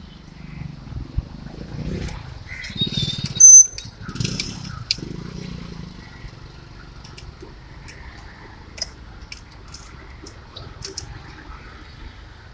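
Hand tools and metal parts clicking and clinking while the adjustable timing-chain guide is bolted onto the engine with a 6 mm bolt, with a short, loud, high-pitched squeak about three and a half seconds in and scattered light clicks after it.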